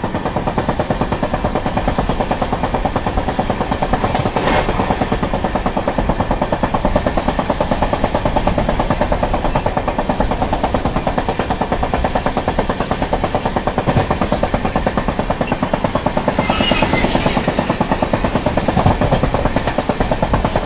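Indian Railways passenger train running at speed, heard from the open door of a moving coach: a continuous rumble with a fast, steady rattle of wheels on the track.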